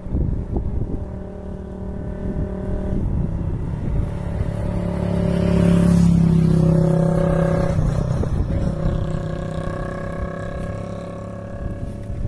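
A small engine running, growing louder to a peak about halfway through and then easing off, its pitch stepping up and down, over a low rumble.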